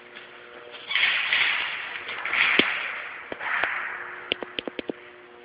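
Airsoft guns firing: a couple of single snapping shots, then a quick burst of about seven shots near the end, over loud rushes of noise in the first half.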